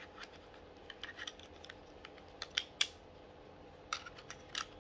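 Light plastic clicks and taps from handling a gamepad controller and its clip-on phone stand, scattered irregularly, with a few sharper clicks in the second half.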